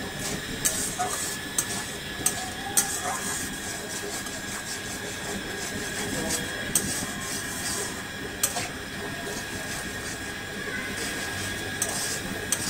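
Milk bubbling and sizzling in a hot wok with fried onions, a steady hiss, while a metal spatula stirs and scrapes the pan, giving several sharp clicks against the metal.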